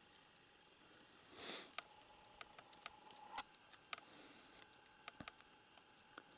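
Near silence with scattered faint sharp clicks. About a second and a half in there is one short, soft breath-like puff.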